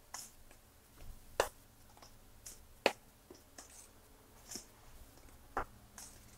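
A metal spoon stirring dry flour in a stainless steel bowl. It gives a few sharp clinks as it strikes the bowl, with soft scraping between them.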